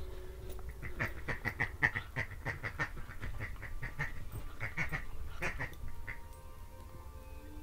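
Rubber squeaky pig toy squeaking in a rapid series, about four squeaks a second, as a dog bites and tugs at it.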